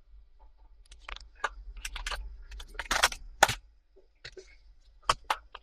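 A scatter of light clicks and taps, as of small parts being handled, with a denser cluster about three seconds in.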